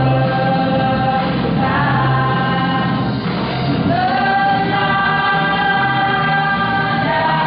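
Mixed choir of young women and men singing in parts, holding long sustained chords, with a short break about three seconds in before the next phrase begins.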